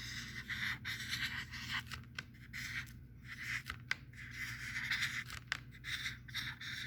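Handwriting: a pen or marker scratching across a writing surface in a run of short strokes, with small ticks and taps between them.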